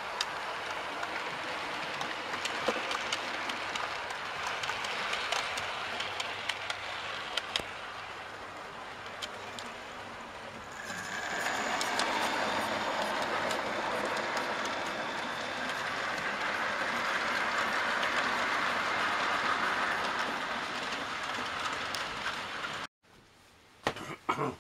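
Model trains running along the track: a steady running noise of wheels and motors with frequent small clicks. It grows louder about eleven seconds in as a train passes close, and cuts off suddenly near the end, followed by a few faint knocks.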